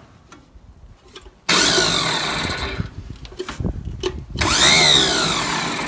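Farmall 140's electric starter motor spinning freely twice, its whine rising and then winding down, without turning the engine over: the starter drive is not engaging the flywheel.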